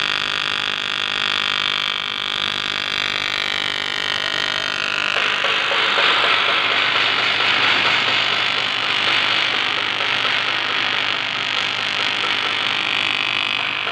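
AC TIG welding arc on aluminum pipe, buzzing steadily, turning to a louder, rougher hiss about five seconds in.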